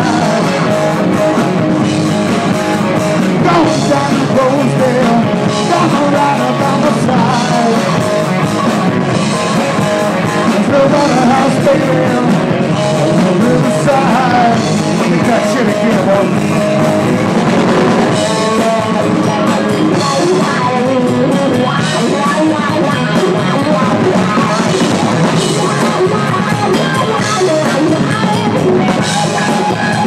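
Live rock band playing: electric guitar over a drum kit, loud and continuous.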